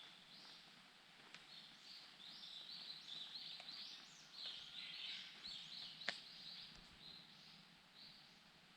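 A small wild bird calling: a faint, rapid run of short high chirps lasting several seconds, then tailing off. A single sharp click cuts in about six seconds in.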